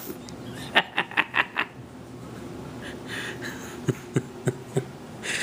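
A man's quiet laughter: a quick run of short, breathy bursts about a second in, then a few more soft chuckles near the end.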